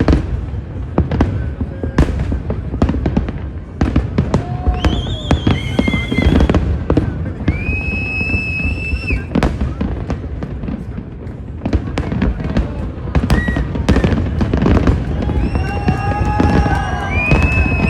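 Aerial fireworks display: a continual barrage of shells bursting, with dense bangs and crackles in quick succession.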